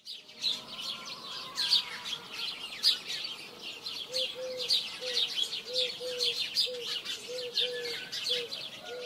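Many small birds chirping and twittering, with a low, short call repeated about twice a second from about four seconds in.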